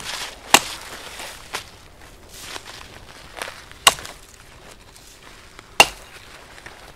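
Three sharp, loud cracks of conifer boughs being chopped and broken off a fallen tree, about half a second, four seconds and six seconds in, with softer rustling of branches and crunching in the snow between them.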